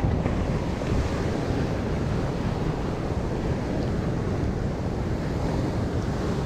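Wind buffeting the microphone over choppy sea water washing around a kayak, a steady rushing noise heaviest in the low end.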